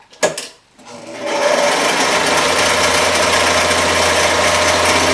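A click, then an electric Singer sewing machine starts up about a second in and runs steadily at speed, its motor humming under the rapid clatter of the needle mechanism.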